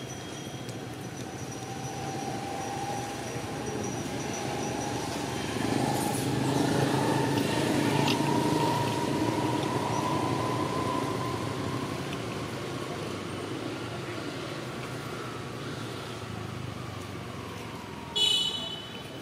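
A motor vehicle passing by: a broad engine and road noise that swells and fades, its pitch rising and then falling. Near the end there is a short, loud, high-pitched sound.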